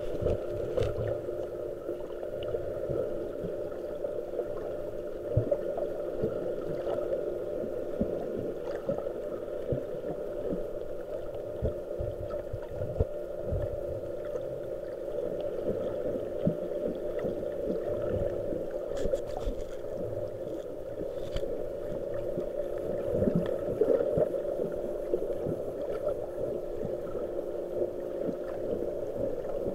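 Muffled underwater ambience picked up through an action camera's waterproof housing: a steady low hum with a few faint constant tones, broken by scattered irregular knocks and gurgles.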